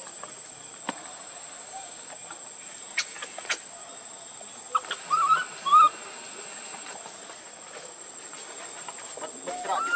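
Baby macaque giving short, arched cries, several in quick succession about five seconds in and more starting near the end, with a few sharp clicks before them and a steady high whine behind.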